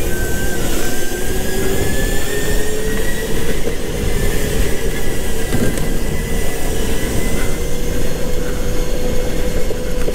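Go-kart running at speed, heard from on board: a steady motor whine that rises slowly in pitch over a rough rumble of tyres and wind.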